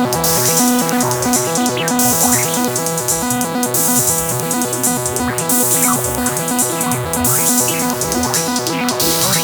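Electronic techno played live on synthesizers and a drum machine: a repeating sequence of stepped synth notes over a steady beat, with a hissing high layer that drops out and comes back and short falling pitch sweeps every second or two.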